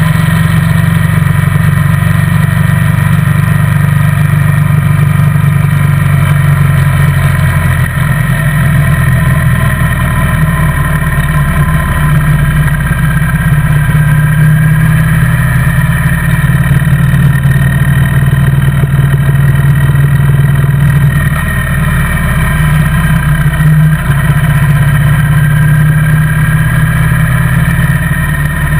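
Motorcycle engine running steadily at cruising speed, heard from on board the bike as a loud, even low drone with only slight shifts in pitch.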